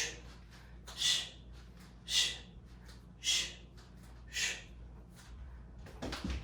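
A person's short, forceful breaths, about one a second, five in a row, taken while working through repeated side-to-side lateral squats.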